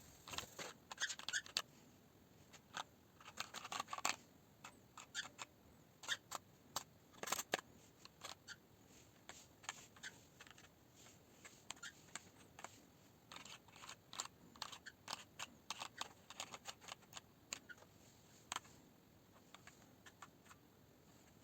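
Keys of a Qcyber Dominator TKL keyboard being typed on: irregular sharp clicks, sometimes in quick flurries, with short pauses between.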